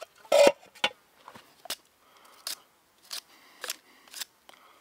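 Knife whittling a small wooden stick, a series of short, sharp cutting strokes about every half second to second, the first and loudest about half a second in.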